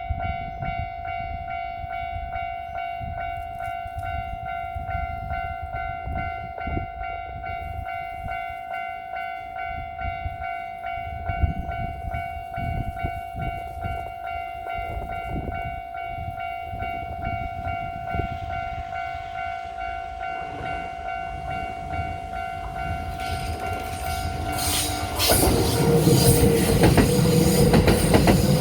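Japanese level crossing alarm sounding a steady high tone with overtones over a low rumble. About 25 seconds in, a Kintetsu Nagoya Line train reaches the crossing and passes close by with loud wheel-on-rail noise, and the alarm tone drops out.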